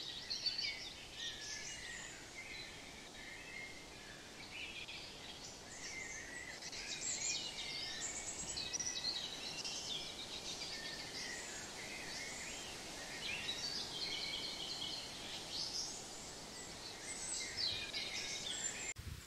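Several small songbirds singing and chirping continuously over a steady, even background hiss of outdoor ambience.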